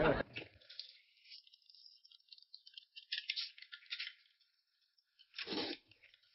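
Crinkling, rattling handling noise in short irregular spells, followed by a brief louder sound about five and a half seconds in.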